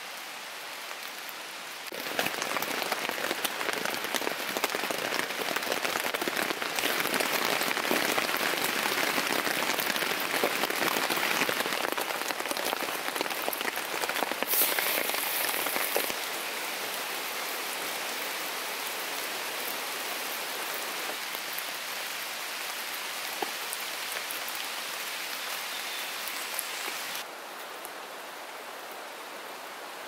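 Rain falling, a dense pattering of drops. It gets abruptly louder about two seconds in, then drops back suddenly in steps, once about halfway and again near the end.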